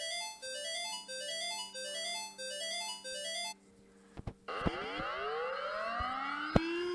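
Synthesized alarm jingle of quick rising note runs, repeated about twice a second, which stops about three and a half seconds in. After a short gap and a few sharp clicks, a siren winds up in pitch and levels off into a steady tone near the end.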